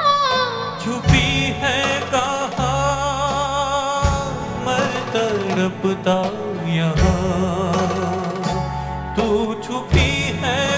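Live band playing a Hindi film song: bass, drums and a melody line with vibrato, with singing. Strong accented hits land about every three seconds.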